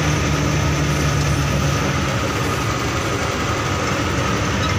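Truck's diesel engine running steadily while driving, heard from inside the cab, with tyre noise from the wet road.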